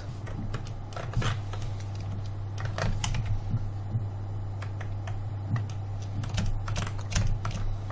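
Computer keyboard keys tapped now and then: scattered, irregular clicks over a steady low hum.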